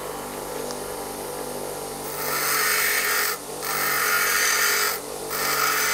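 Bench grinder running steadily, then from about two seconds in a high-speed steel tool bit is pressed against the grinding wheel in three passes, each a loud hiss of grinding with short breaks between. The passes are grinding extra side clearance onto a lathe chamfering tool.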